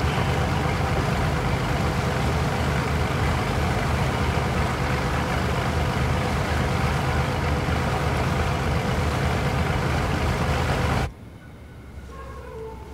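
A boat's engine running with a steady low drone under a wash of noise. It cuts off suddenly about eleven seconds in, leaving a much quieter background.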